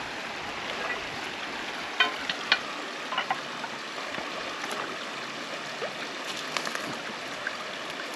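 Shallow mountain stream flowing steadily over rocks, with a few sharp knocks of stones about two to three seconds in as rocks are shifted in the stream bed during scoop-net fishing.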